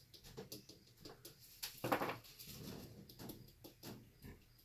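Soft taps and small clicks of a stick tapping a metal chain down into wet acrylic pouring paint, one louder knock about two seconds in.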